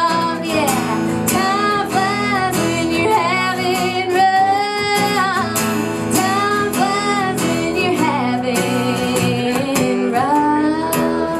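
A woman singing a country song live into a microphone, accompanied by strummed acoustic guitar.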